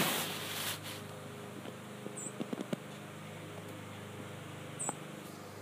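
Steady low drone of a distant lawn mower engine. In the first second, a loud rustle of a hand brushing against the phone's microphone, followed by a few light clicks and faint high chirps twice.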